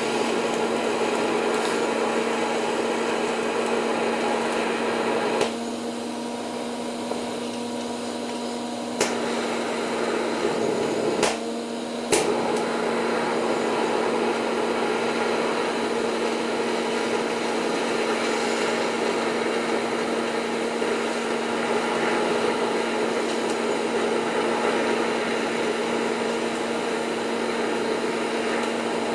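TIG welding arc buzzing and hissing steadily as coat-hanger wire is fed in as filler. It drops quieter for a few seconds about a fifth of the way in, and there are a couple of sharp clicks around twelve seconds in.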